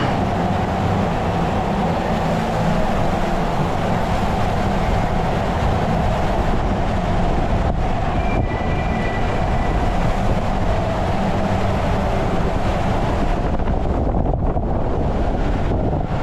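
Inflatable four-person raft sliding fast down an enclosed water slide tube: a steady rush of water against the plastic tube over a low rumble.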